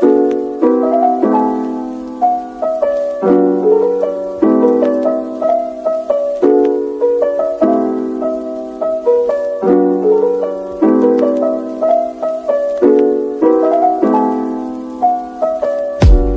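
Background music: a soft piano playing repeated, gently decaying chords, about one chord a second. Right at the end a deep bass note and a drum hit come in.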